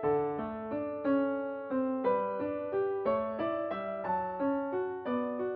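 Background piano music: a gentle, slow piece with a note or chord struck about once a second and lighter notes in between, each ringing and fading.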